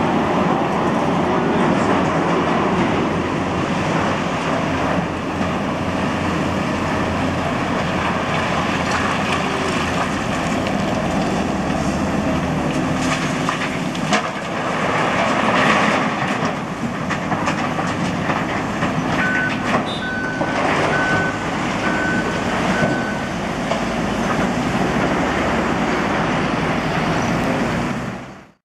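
Diesel engines of a Liebherr 954 crawler excavator and a Liebherr articulated dump truck running, with rock clattering into the truck's body as the bucket dumps a load about halfway through. A little later a beeper sounds about five short beeps, and the sound fades out at the very end.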